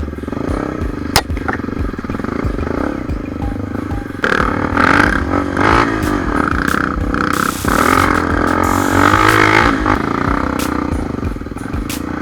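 Honda XR 250 Tornado's single-cylinder four-stroke engine running on a dirt trail, revving up and down through a louder stretch in the middle, with a few sharp knocks.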